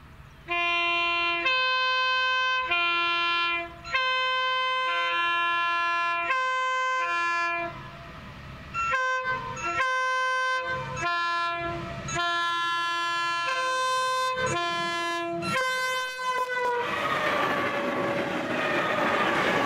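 Chime air horns of SCT CSR class (SDA-1) diesel locomotives sounded in a long series of blasts, long and short, each a chord of several notes, with the notes changing from blast to blast. At about 17 s the horn stops and the locomotives and boxcars pass close by with loud engine and wheel noise.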